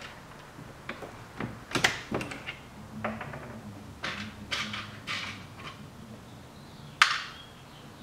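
A Lee reloading press seating small rifle primers into 300 Blackout brass cases: a run of light clicks and metal knocks as cases go into and out of the shell holder and the press is worked. The loudest is a single sharp click about seven seconds in.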